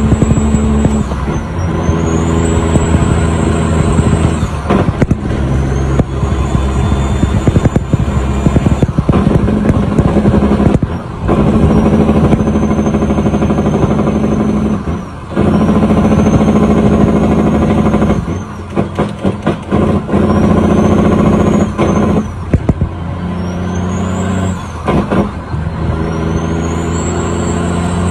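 Heavy truck's diesel engine, heard from inside the cab, pulling through a run of gear changes. It drops off briefly between pulls about eight times, and a high turbo whistle rises as it pulls in each gear.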